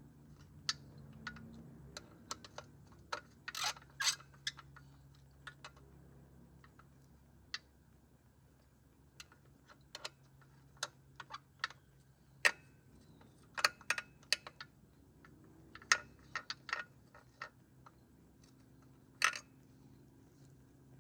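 Irregular metallic clicks and clinks of a hand wrench working loose the 10 mm fill and drain bolts on a GY6 scooter's gear case, some clicks coming in quick runs.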